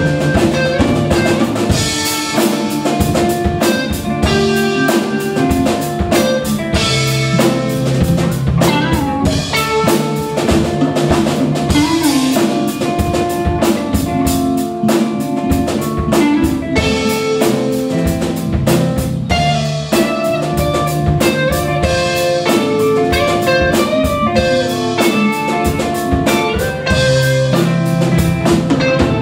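Live band playing amplified music: two electric guitars, an electric bass and a drum kit, with steady drum beats under the guitars.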